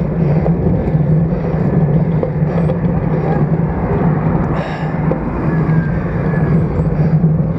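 Steady riding noise from a road bicycle at speed, picked up by an action camera on the stem: wind on the microphone and road noise, with a constant low hum.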